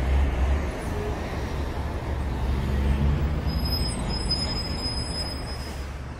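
Busy city-street traffic: a steady din of car, bus and truck engines with road rumble, and a thin high whine for a couple of seconds past the middle.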